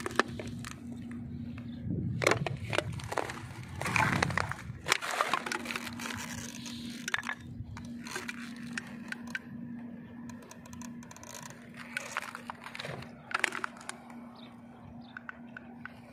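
Scattered clicks, knocks and rustling of stones and debris being disturbed on rubble, busiest in the first few seconds and sparser after, over a faint steady hum.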